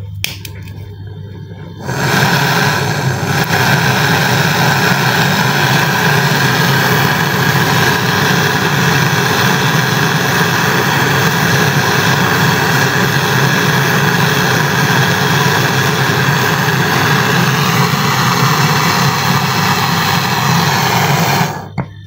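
Gas brazing torch burning with a steady roar, lit about two seconds in and shut off near the end, while it brazes shut the copper process tube of a freezer. Underneath is a low hum from the freezer's compressor, left running to hold the vacuum.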